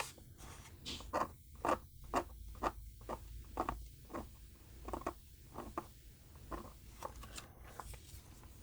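Plastic-nib Sakura Pigma Micron PN pen drawing on paper: a string of short, scratchy strokes, about two a second, with pauses between them.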